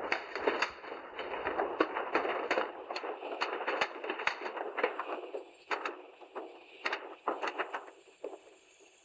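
Rockfall: a rush of sliding debris with many sharp cracks and knocks of rocks striking one another, thinning out in the second half to scattered cracks.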